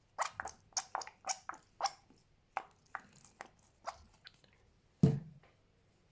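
Fluffy slime squeezed and worked by hand, giving a quick run of sharp popping clicks, about four a second, that thins out. One louder, deeper squelch comes about five seconds in.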